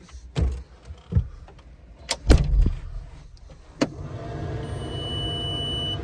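A few knocks and thumps in the skid steer cab, the loudest about two seconds in, then the CAT 226D3 skid steer's diesel engine starts from cold about four seconds in and runs steadily, with a steady high beep from the cab sounding over it.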